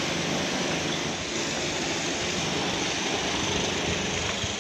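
Steady engine noise from road-works machinery, running evenly with a low hum and no clear rise or fall.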